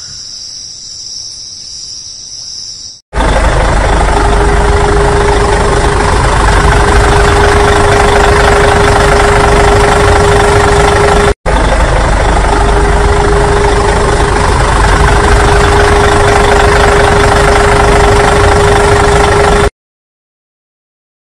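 Crickets chirping steadily, then a loud tractor engine sound running at a steady idle with a constant hum. It breaks off for an instant about halfway and stops suddenly near the end.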